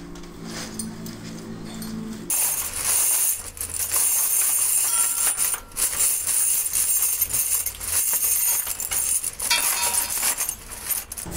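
A steady low hum, then from about two seconds in, a crate full of metal motorcycle clutch levers clinking and rattling together as a hand rummages through them.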